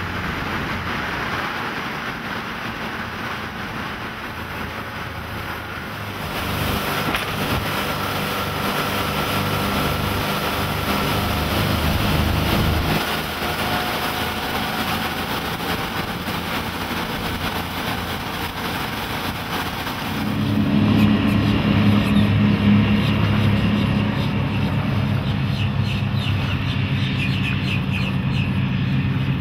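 Twin MerCruiser 7.4L big-block V8 inboards of a Formula 330 Sun Sport cruiser running at speed, with wind and water rushing past. The engine note changes abruptly a few times and turns deeper and louder about two-thirds of the way through.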